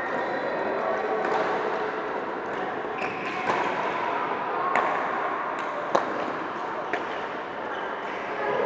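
Badminton rackets striking shuttlecocks: about five sharp, irregularly spaced hits, the loudest about six seconds in, over steady hall noise.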